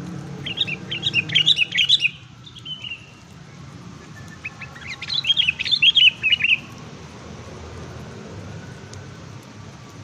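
A small songbird singing: two bursts of quick, high chirping notes, each about a second and a half long and a few seconds apart, over a steady low background hum.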